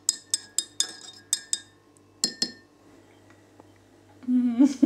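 Metal teaspoon clinking against the inside of a ceramic mug while stirring a drink: quick ringing taps for about a second and a half, then two more about two seconds in. A person's voice starts near the end.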